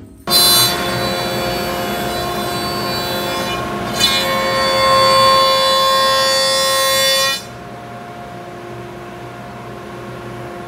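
Jointer cutting a large walnut slab: a steady whine with the rasp of the cutterhead taking wood, growing louder about four seconds in. At about seven seconds the cut ends and the machine spins on, empty, at a quieter steady whine.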